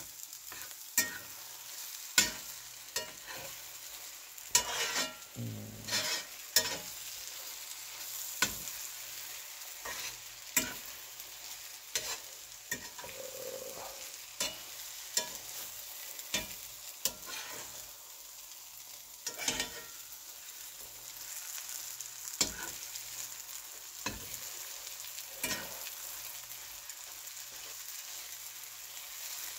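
Eggs, cabbage and onion sizzling in a cast iron skillet while a metal spatula scrapes and taps against the pan every second or two as they are scrambled.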